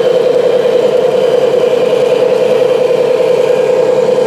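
Radio-controlled model heavy-haul truck running under load: a steady motor hum with a fast, even flutter.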